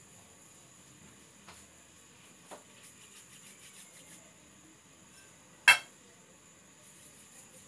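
Quiet handling of soft dough and ceramic plates, with a few light taps and small ticks, then one sharp clink of ceramic dishware about two-thirds through, ringing briefly.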